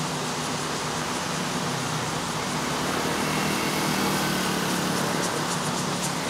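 Small scooter engine running past over a steady background hiss, growing a little louder midway.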